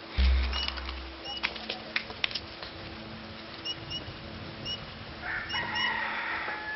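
Chickens clucking and birds chirping in short high calls, with a denser call a little after five seconds in. A low thump comes just after the start.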